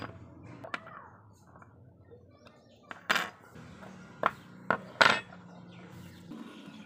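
Rusty iron hook, ring and hanger plate of an old spring scale clinking against each other and knocking onto a wooden board as they are taken apart and set down: about five sharp clinks, the loudest about five seconds in, over a low steady hum.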